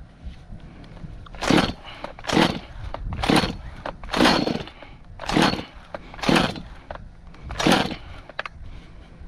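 Stihl MS192 chainsaw's recoil starter being pulled seven times, about one pull a second, the engine cranking on choke without starting.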